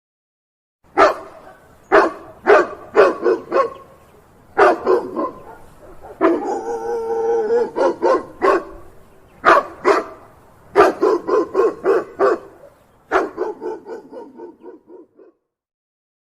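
Doberman barking in quick clusters of deep barks, with one longer drawn-out call in the middle; the barks grow weaker near the end.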